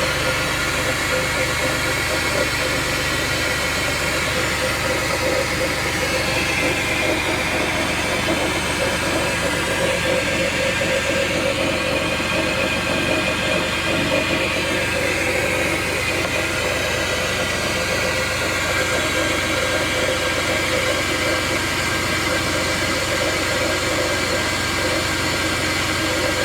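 Chrysler 300M's engine running steadily at idle with a strange friction noise that shows up in the morning: a continuous rubbing hiss over a steady hum, with a higher band that wavers slowly in pitch.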